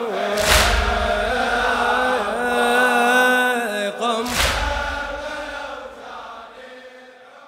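Male voices chanting a Shia latmiya lament, holding long drawn-out notes that step up in pitch and then drop, fading out toward the end. Two heavy booming hits about four seconds apart cut through the chant.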